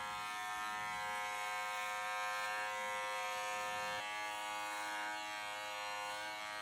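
Electric pet hair clippers running with a steady buzz while trimming a dog's coat.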